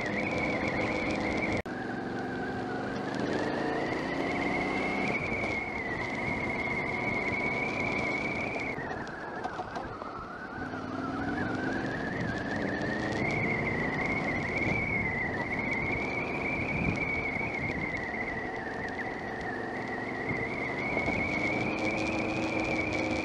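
Adventure motorcycle engine running on a dirt track, its pitch climbing as it pulls up through the revs several times. It eases off about ten seconds in, then picks up again.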